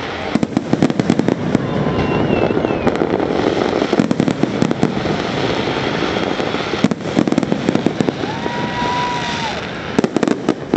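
Fireworks going off in rapid clusters of crackling bangs, thinning out for a moment in the middle and then picking up again. About eight seconds in, a whistle-like tone rises, holds for over a second and falls.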